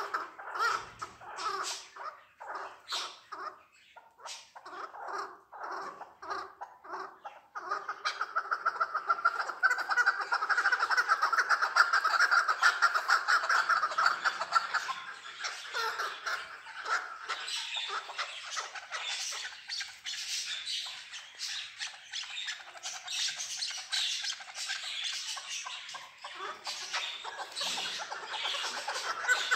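Chukar partridges calling: a string of short clucking notes, then from about eight seconds in a loud, fast run of notes lasting several seconds, then scattered softer, higher calls.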